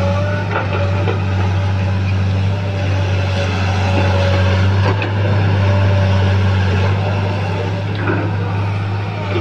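Diesel engine of a tracked excavator running steadily under load while it digs and dumps dry dirt into a dump truck, with a few short knocks and clanks from the bucket and falling dirt.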